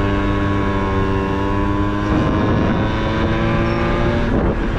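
Honda Topic moped's small engine running under way, with a steady note that shifts about halfway through and drops away near the end, over low rumble from wind and road.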